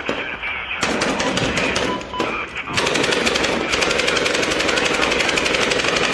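Automatic gunfire: rapid shots begin about a second in and become a fast, unbroken rattle from about three seconds in.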